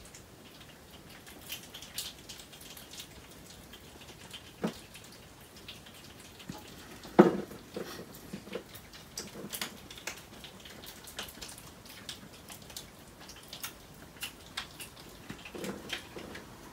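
Pine martens feeding from plates: scattered small clicks and crunches of nuts being eaten and of claws and plates on the sill and table, with a louder knock about seven seconds in.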